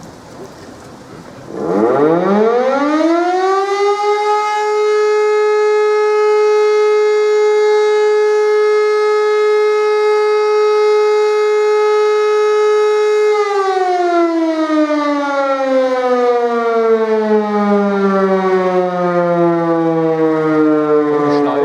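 Siemens E57 electromechanical siren starting up during a test alarm. Its howl rises over a couple of seconds to a steady tone, holds for about ten seconds, then winds down in a long falling glide after the siren is switched off.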